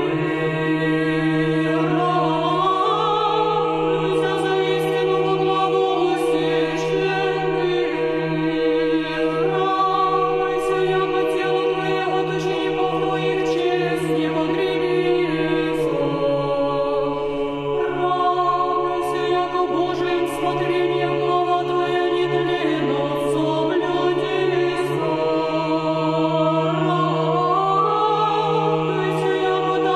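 A cappella choir singing Orthodox church chant, several voices moving in slow phrases over a held low bass note.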